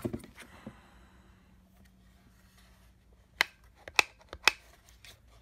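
Sharp clicks from the plastic housing of a handheld clamp meter being handled: four in quick succession in the second half, after faint rustling.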